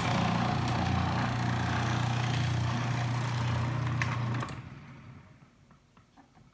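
Breville Sous Chef 16 food processor motor starting suddenly and running steadily with a low hum as leeks are pushed down the feed chute and sliced. About four and a half seconds in it cuts out and winds down, stopped by the power button being pressed by mistake.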